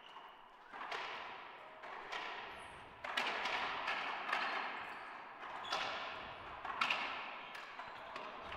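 Racquetball rally: a string of sharp smacks of the rubber ball off racquet strings and the court walls at irregular intervals, each ringing on in the enclosed court's echo.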